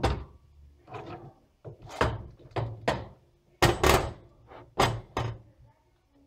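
Irregular knocks and thuds, eight or nine of them, as prickly pears and a knife are handled and set down on a cutting board.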